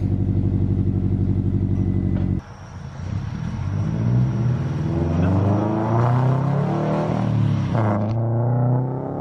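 Scion FR-S's FA20 flat-four, fitted with an unequal-length header, idling close by with a steady rumble that cuts off about two seconds in. After that an engine is heard in the distance accelerating, its revs climbing for several seconds, then dropping and pulling again near the end.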